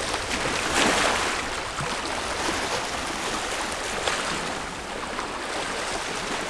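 Steady wash of small bay waves against a rocky shoreline, with a louder rush of noise about a second in.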